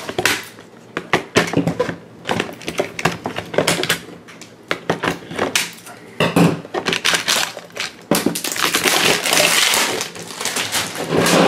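Toy packaging being opened by hand: scissor snips and clicks and knocks of a plastic-wrapped action figure and its cardboard box. Near the end comes a few seconds of steady crinkling of the plastic wrap.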